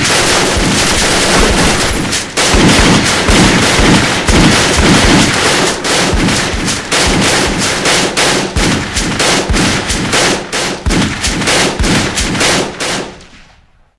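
Shootout sound effect: many guns firing at once, with rapid machine-gun bursts among single shots. The shots thin out toward the end and fade away about a second before it closes.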